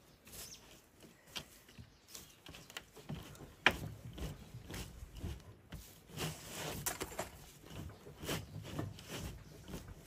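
Irregular rustling and soft crackling of pan-roasted green tea leaves being rolled and rubbed by cotton-gloved hands on a cotton cloth over a bamboo basket, the rolling step that bruises the leaves. One sharp click stands out about four seconds in.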